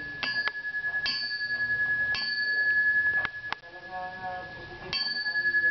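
Brass ware struck lightly about five times with a heavy brass pestle, each tap ringing on in one clear, bell-like tone that carries through the pauses between taps.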